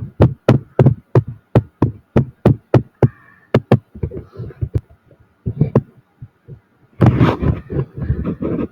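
Sharp, evenly spaced clicks on a computer, about four a second for nearly four seconds. Scattered softer taps follow, then a denser clatter near the end.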